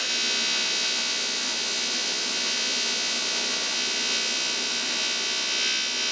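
Steady buzzing, hissing electric arc sound, like a welding arc, that cuts in suddenly and holds at an even level.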